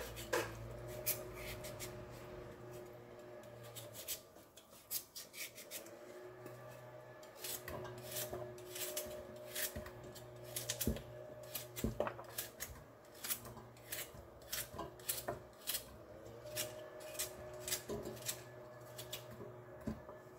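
Kitchen knife cutting a raw carrot held in the hand, a short crisp click with each cut as small pieces drop into a stainless steel pot. A few cuts at the start, then steady cutting at about one or two a second from about seven seconds in.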